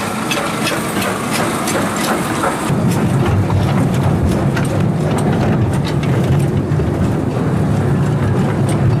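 Miniature railroad crossing bell clanging at about two to three strikes a second. About three seconds in, the low rumble of the children's ride-on locomotive comes up loud and holds.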